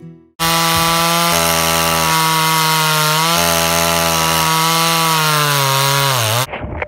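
Poulan 2150 two-stroke chainsaw, with its muffler opened up and baffles removed, running at full throttle while cutting a log. It starts about half a second in as one loud, steady engine note that dips slightly under load a couple of times. Near the end the pitch falls away as the throttle is let off, and the sound stops.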